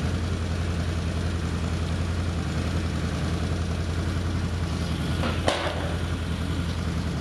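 ATV engine idling steadily, a constant low hum, with one sharp click a little past halfway.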